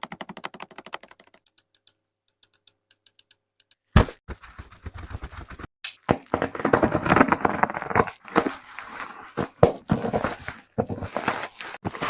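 Product packaging being handled and opened: a sharp knock about four seconds in, then continuous crinkling, tearing and scraping of box and wrapping. Before that, a quick run of clicks dies away into near quiet.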